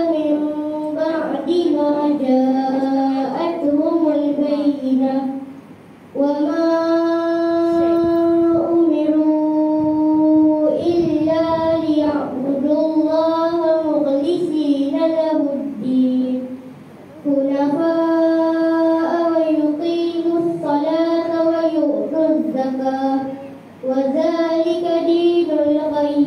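A child's voice chanting Quran recitation melodically, in long held phrases with short breaths about six, sixteen and twenty-four seconds in.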